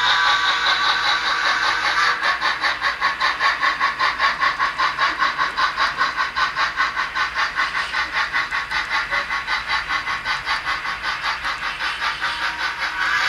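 Steady steam-locomotive exhaust chuffing, about four beats a second, from the sound-equipped model of an ACL 2-10-0 steam locomotive hauling reefers, easing a little near the end.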